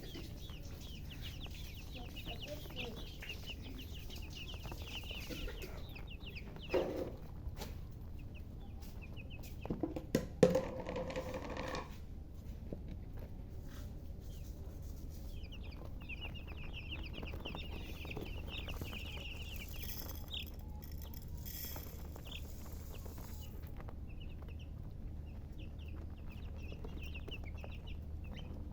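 Chickens chirping in many quick, high peeps, with a few knocks and thumps about seven seconds and ten to eleven seconds in, the loudest near ten and a half seconds.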